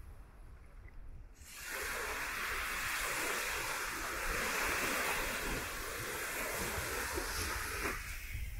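Surf washing onto a sandy beach: a steady rushing hiss that swells up about two seconds in and eases off near the end.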